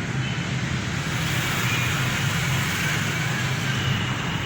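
Steady drone of a running engine, with a low hum under an even wash of noise.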